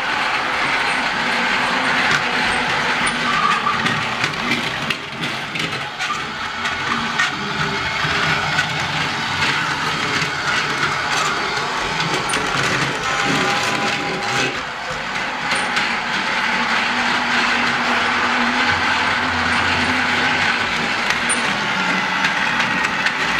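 Motorised LEGO Duplo toy train running on plastic track: a steady small-motor whir with a constant light clatter of small clicks from the plastic wheels and track.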